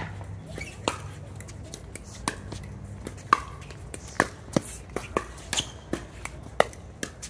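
Sharp pops of pickleball paddles striking the plastic ball in a fast rally, about ten in all at uneven intervals of half a second to a second. The loudest comes about three seconds in.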